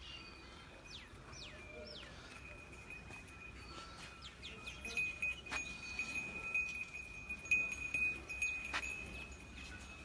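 Birds chirping in short, falling calls over a steady high ringing tone, with two sharp clicks about five and nine seconds in.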